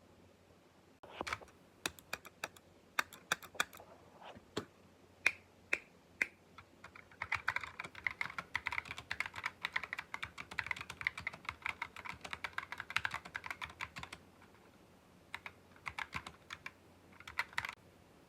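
Typing on a computer keyboard: a few scattered single keystrokes, then a run of fast, continuous typing lasting about seven seconds, then a pause and a few short bursts of keystrokes near the end.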